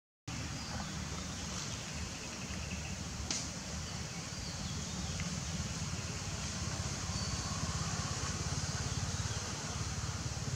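Steady outdoor background rumble and hiss, with a few faint short high chirps or ticks scattered through it. A brief cut to silence comes right at the start.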